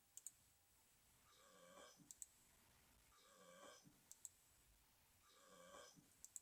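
Near silence, broken by faint paired clicks and a faint pitched sound that repeat about every two seconds.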